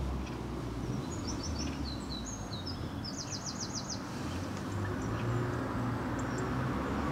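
A small songbird singing a short phrase of high notes that ends in a quick trill of about eight notes, over a steady low background rumble.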